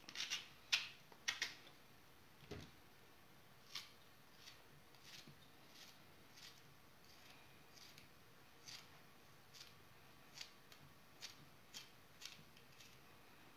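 Chef's knife cutting through raw zucchini held in the hand: a series of faint, crisp clicks at irregular intervals about a second apart, as chunks are cut off and drop onto a plate.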